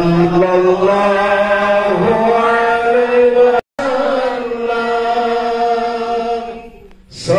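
A man's voice chanting an Islamic devotional recitation into a microphone, in long drawn-out melodic phrases. The sound cuts out abruptly for a split second about halfway through and fades away near the end.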